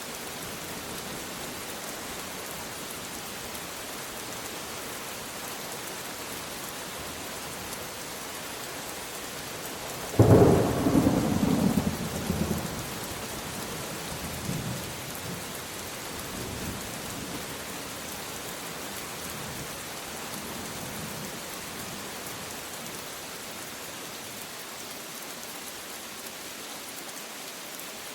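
Steady rain falling, with a sudden close thunderclap about ten seconds in that rolls off into rumbling over a few seconds, and fainter rumbles a few seconds later.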